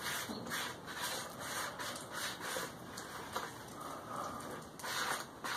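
Thick, wet Satanite refractory cement being stirred and worked in a plastic bowl: a run of soft scraping, rubbing strokes, one after another, as the clumps are worked out of the paste.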